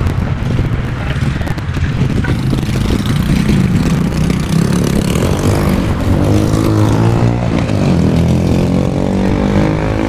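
A motor engine running nearby with a steady low hum; its pitch slides up and down in the second half.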